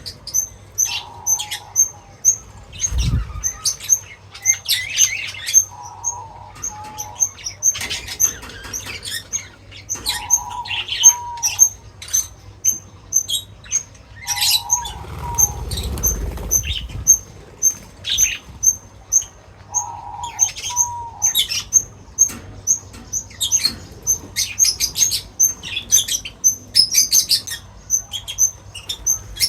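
Small birds chirping in quick, repeated high notes about twice a second, with bursts of rapid rustling and fluttering as they feed. A shorter, lower call comes back about every five seconds, and there is a low thump about three seconds in.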